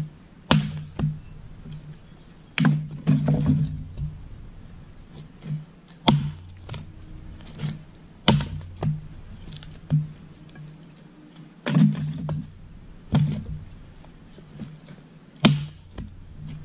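Axe splitting firewood: about seven heavy chops into the wood at irregular intervals of one to three seconds, with lighter knocks between.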